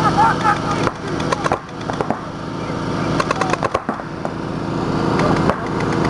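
Paintball markers firing rapid strings of sharp pops in several bursts during a match.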